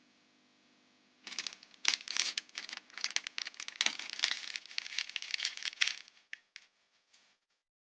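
Plastic packaging being crinkled and torn by hand, a dense irregular crackling that starts about a second in and stops shortly before the end.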